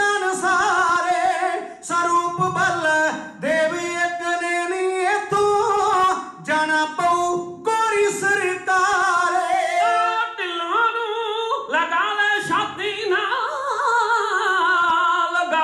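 Kavishri: men's voices singing a Punjabi ballad unaccompanied into microphones, in long, high, sustained lines with a wavering pitch, pausing only briefly between phrases.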